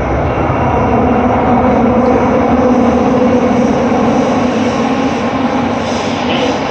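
Madrid Metro train running, heard from inside the carriage: a loud, steady rumble of wheels on rail with a droning motor hum over it.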